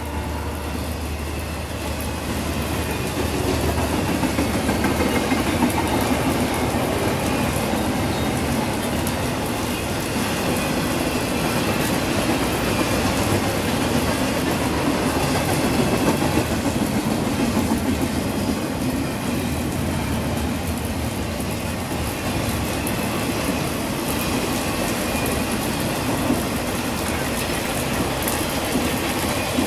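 Intermodal freight cars rolling past: container well cars and trailer flatcars, with a steady, continuous wheel-on-rail rumble.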